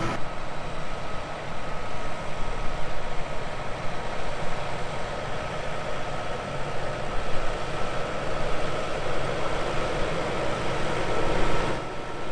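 Massey Ferguson tractor engine running steadily under load, heard from inside the cab as it pulls a power harrow through the seedbed, with a thin steady whine over the engine noise.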